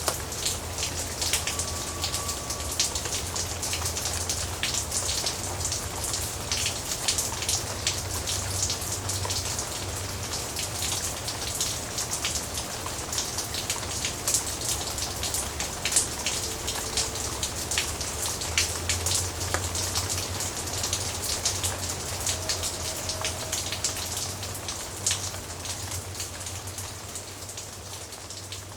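Steady rain with many individual raindrops tapping close to the microphone, over a low steady rumble; it eases slightly near the end.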